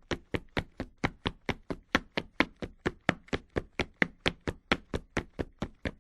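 Rapid, evenly spaced sharp knocks or taps, about four a second, at a steady pace throughout.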